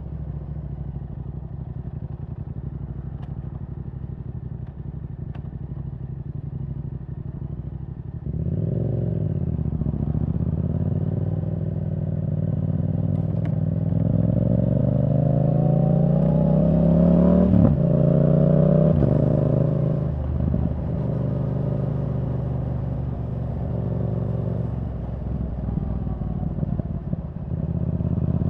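Yamaha R7's 689 cc parallel-twin through a Yoshimura R77 exhaust: a steady low engine note for about eight seconds, then it opens up and the note climbs for several seconds. Two quick breaks, typical of quickshifter upshifts, come just past the middle, after which it settles into a steadier note and picks up again near the end.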